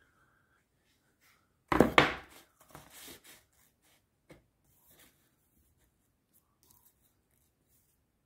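Cut PVC foam sign letters being handled and shifted on a layout template: a loud scraping knock about two seconds in, then lighter rubbing and a few small clicks.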